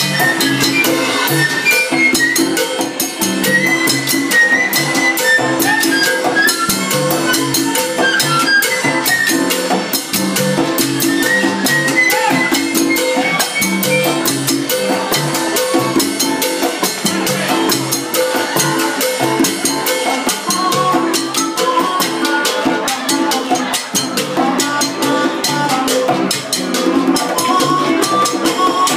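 Live Latin band playing salsa, with drum kit and percussion keeping a steady beat under a wandering lead melody line.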